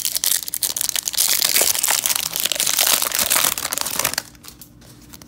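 Shiny foil wrapper of a 1994-95 O-Pee-Chee Premier hockey card pack crinkling loudly as it is torn open and the cards are pulled out, stopping about four seconds in.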